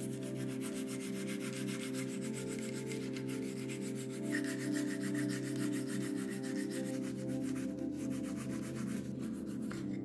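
Quick, even back-and-forth strokes of hand sanding or rubbing on the Zippo lighter's metal, over sustained background music.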